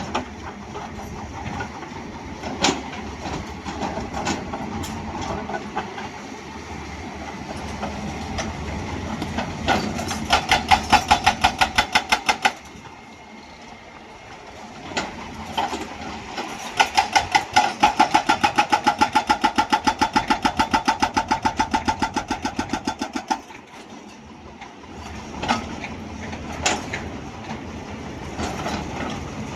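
Excavator-mounted hydraulic breaker hammering rock in two long runs of rapid, even blows, about ten a second, with the Hyundai excavator's diesel engine running between runs and a few single knocks.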